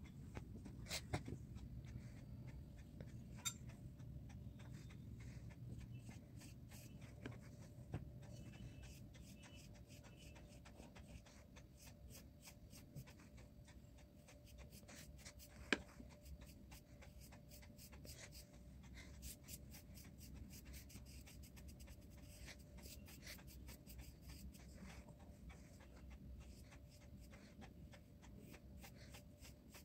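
Very faint strokes of a round paintbrush brushing paint onto paper, with scattered small ticks and one sharper tap about halfway through.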